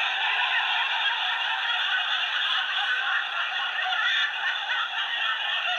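Sound-effect recording of a valve letting out air: a steady hiss held for about six seconds.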